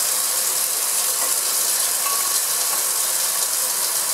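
Laboratory vacuum pump running steadily for a vacuum filtration, a loud, even hissing noise.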